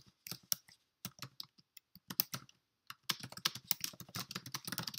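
Typing on a computer keyboard: scattered key clicks for the first couple of seconds, then a fast, dense run of keystrokes over the last two seconds.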